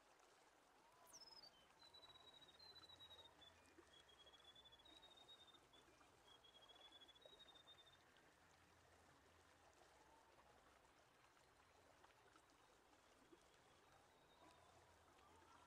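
Near silence: a faint hiss, with a faint high pulsed whistle that steps up and down in pitch during the first half.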